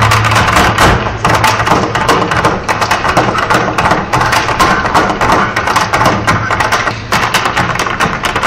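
Irish hard-shoe step dancing: rapid, irregular taps and clicks of the dancers' shoes on the stage, over music from a loudspeaker.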